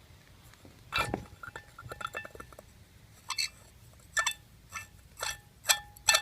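Metal parts and tools clinking as the venturi is fitted back into a jet pump housing: a knock about a second in, a patter of small clicks, then about six sharp ringing clinks roughly half a second apart.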